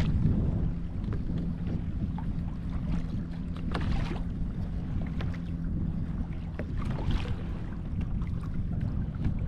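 Wind buffeting the microphone on a fishing kayak, with water moving against the hull and a few short knocks or splashes, over a faint steady low hum.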